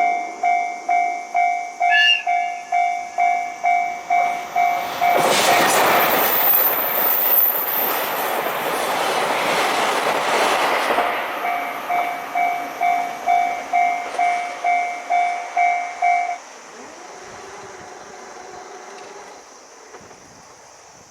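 Japanese level-crossing warning bell dinging about twice a second. About two seconds in, the approaching diesel limited express gives a short high horn note. The train then passes at speed with a loud rushing rumble that drowns the bell for about six seconds. The bell comes back and then stops abruptly, leaving the faint sound of the departing train.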